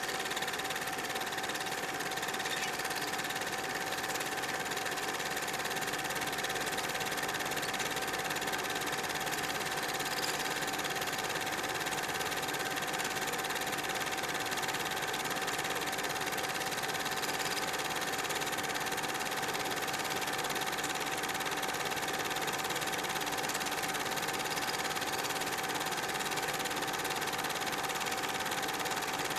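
Super 8mm film projector running steadily: an even mechanical whir with a constant tone in it.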